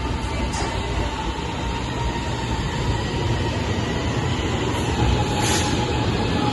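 Light rail (LRT) train running: steady rumbling rail noise with a faint, steady whine, slowly growing a little louder.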